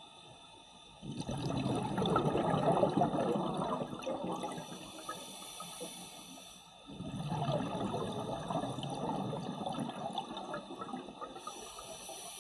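Scuba regulator exhaust bubbling underwater: two long exhalations by a diver close by, starting about a second in and about seven seconds in, each lasting around four seconds.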